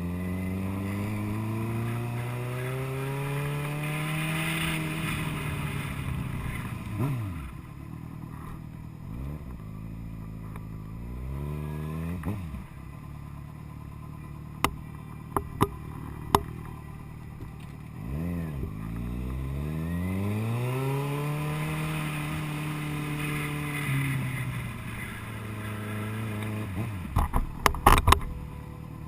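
Motorcycle engine pulling up through the revs twice, its pitch climbing over several seconds, holding, then dropping back, with short blips in between. A few sharp clicks or knocks are heard near the end.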